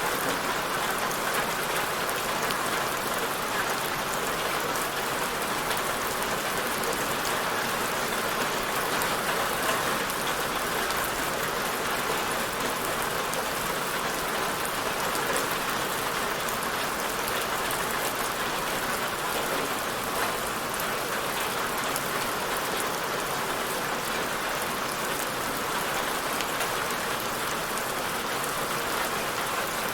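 Steady rain falling on a surface, an even hiss with fine drop patter, unchanging throughout.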